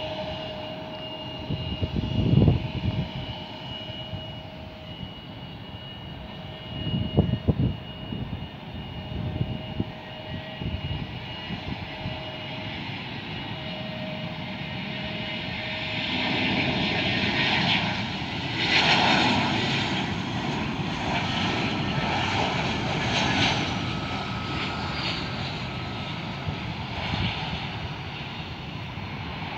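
Jet airliner engines across the airfield: a steady engine whine from a Bombardier CRJ-1000 on the runway, then louder, rougher jet noise from about halfway through as an Airbus A320 comes in to land and rolls out. A couple of brief loud rumbles in the first ten seconds.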